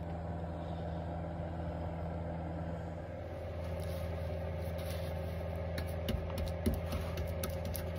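A steady low machine hum, with a few light taps and knocks about six to seven seconds in.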